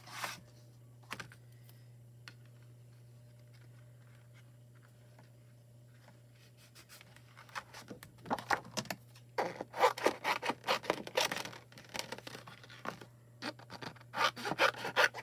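Paper and card being handled on a craft desk: after a quiet first half, clusters of quick rubbing and scraping strokes start about halfway through. A low steady hum runs underneath.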